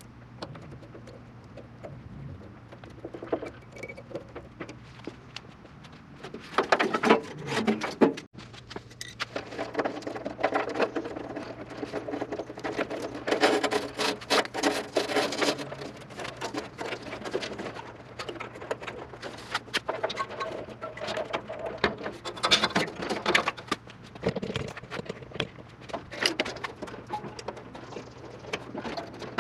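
Irregular rustling, clicking and crackling of a wiring harness being handled and routed by hand, coming in bursts of busier handling, over a faint steady low hum.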